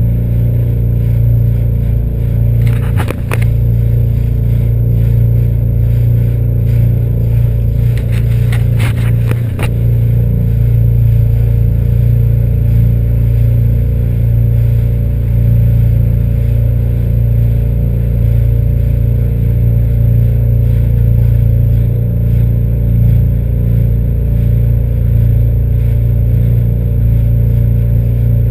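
SeaDoo GTX 260 iS Limited personal watercraft's supercharged three-cylinder Rotax engine running steadily with a deep, even hum. A few brief clattering knocks come about 3 seconds in and again around 8 to 9 seconds in.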